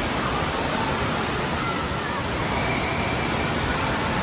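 Water park din: a steady rush of running and splashing water from the slides and pools, with faint distant voices and shouts.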